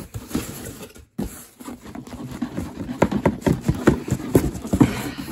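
Cardboard box handled right against the microphone: irregular scraping, rustling and knocking. It stops briefly about a second in, then grows busier and louder in the second half.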